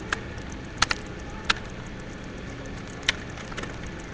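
About four short, sharp paper clicks and crinkles from a folded printer-paper fortune teller being worked by hand, over a steady background hiss.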